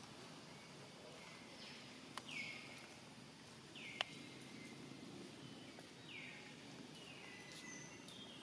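Faint outdoor ambience with a bird calling over and over, each call a short falling whistle that levels off, about every one to two seconds. Two sharp clicks sound about two and four seconds in.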